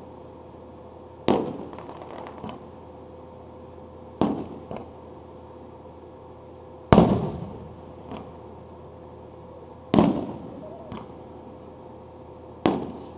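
Aerial firework shells bursting overhead: five sharp booms about three seconds apart, each trailing off in a rumble and followed by a fainter pop.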